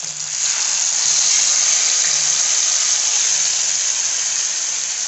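Wet spinach paste hitting hot oil and butter in a non-stick kadai, sizzling loudly. The sizzle swells about half a second in and then holds steady.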